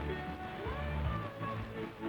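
Music playing over a shortwave radio broadcast, with the thin, muffled sound of AM shortwave reception.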